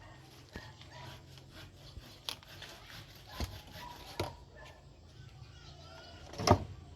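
Scattered knocks, taps and rubbing from building materials being handled and worked by hand, with a louder knock near the end.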